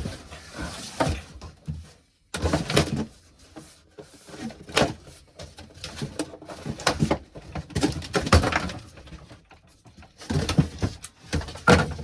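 Irregular rustling, scraping and knocking of cardboard and plastic packaging being handled while an RC truggy is unpacked from its box, with a short break about two seconds in.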